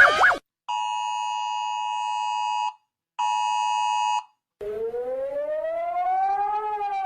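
Emergency Alert System alarm sounds: a fast warbling siren cuts off, then two bursts of a steady electronic attention tone with short gaps of silence between them. About four and a half seconds in, a siren starts rising slowly in pitch, then begins to fall near the end.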